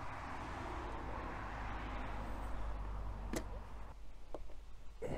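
Clothing rubbing and rustling against a body-worn camera's microphone, dying down about four seconds in, with a sharp click shortly before.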